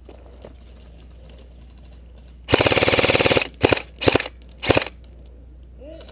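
Airsoft rifle firing on full auto: one long burst of about a second some two and a half seconds in, then three short bursts in quick succession.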